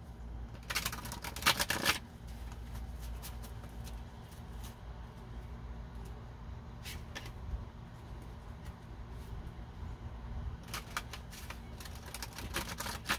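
Tarot cards being shuffled by hand: two runs of rapid card clicking, about a second in and again near the end, with a few single taps and card handling between.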